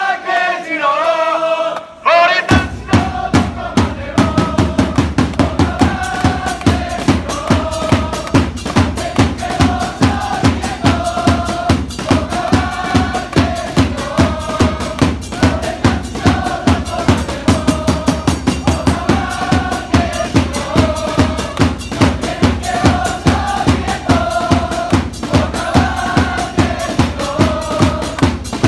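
Football supporters' group chanting a player chant in unison, with a repeating melody. The voices start alone, and a steady bass drum beat joins about two and a half seconds in and carries on under the singing.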